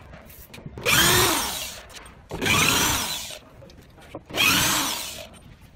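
Corded electric drill with a screwdriver bit driving screws in three short bursts of about a second each; in each burst the motor spins up and then winds down as the trigger is let go.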